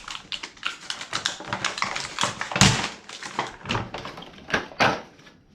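Packaging of a masonry drill bit set being torn and pried open by hand: a rapid run of crackles and clicks, with a sharper snap about two and a half seconds in and another near the end.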